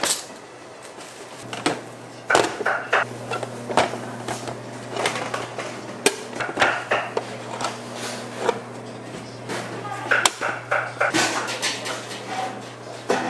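Restaurant kitchen work: irregular knocks and clatter of utensils and dishes, over a steady low hum that starts about a second and a half in.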